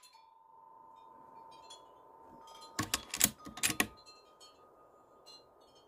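Artemis M16A .25-calibre PCP air rifle being cycled between shots: a quick run of five or six sharp metallic clicks about three seconds in as the action is cocked and the next pellet chambered from the magazine.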